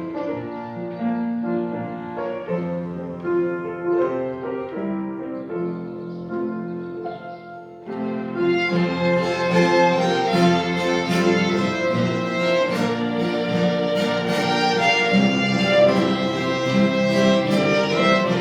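Instrumental background music: piano with bowed strings, growing louder and fuller about eight seconds in.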